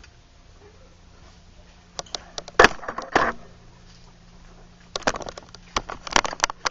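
Sharp knocks, clicks and clatter of objects being handled at a workbench, in two bursts about two seconds in and again about five seconds in, over a steady low electrical hum.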